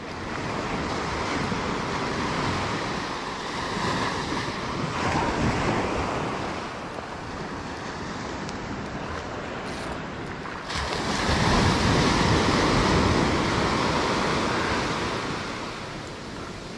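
Low surf washing up and back on a sandy beach, with wind on the microphone; the wash swells louder about eleven seconds in, then eases off.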